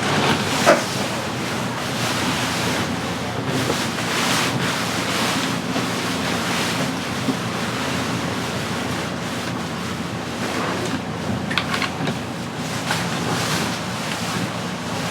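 Water rushing along the hull of a VO65 racing yacht under sail, with wind buffeting the microphone. A few brief knocks sound near the start and again later.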